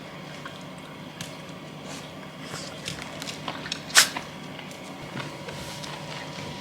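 A dog's wet mouth noises, small squishing clicks, with one sharp click about four seconds in, over a steady low hum.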